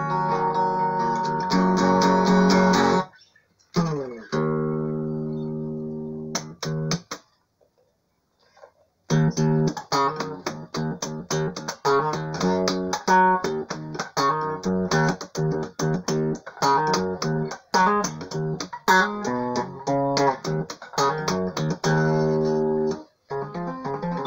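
Ibanez electric guitar played with a clean tone. Ringing chords are let sustain for the first several seconds, then after a short pause come fast picked single-note runs, broken by a brief gap near the end.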